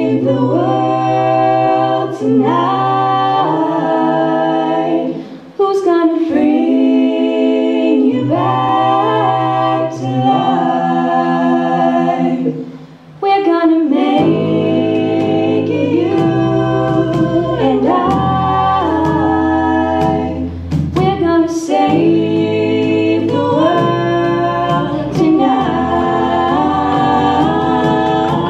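A small group of young voices singing a song together in harmony into microphones. About halfway through, a deeper line comes in underneath the voices.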